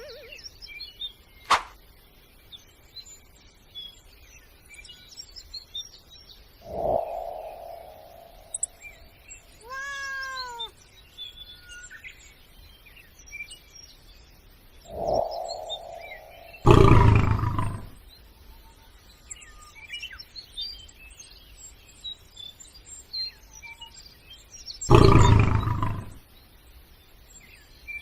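A string of added sound effects over faint birdsong: a sharp click, a short falling tone, a brief warbling tone, a second short falling tone, and two loud bursts about a second each, the second near the end.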